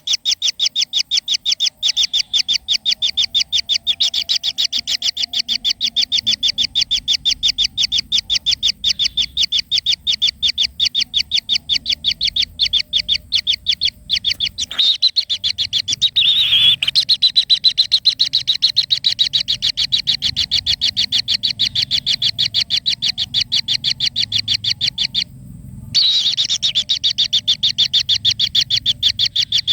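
A bird calling a steady, rapid string of short high chirps, about five a second. A louder falling call sweeps across it about halfway through, and the chirping cuts out briefly near the end.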